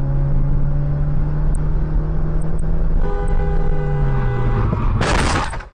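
Car driving noise with a steady low drone, then a car horn held for about a second and a half from about three seconds in. Near the end comes a short, loud burst of noise, cut off abruptly.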